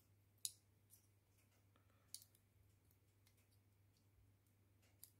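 Small spring scissors of a Rocktol SK02 multitool snipping soft thread: two sharp clicks, about half a second and two seconds in, with a couple of fainter ones, over near silence and a faint steady hum.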